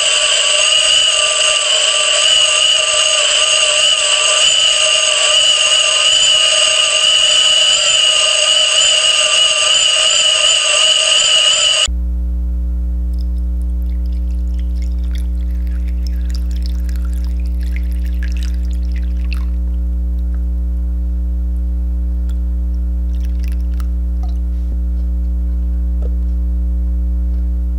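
High-pitched whine of a motor-driven train of 3D-printed plastic gears spinning at speed in water, several steady pitches that waver slightly. About 12 seconds in it cuts off abruptly and a steady low hum takes over, with faint splashing of water being poured.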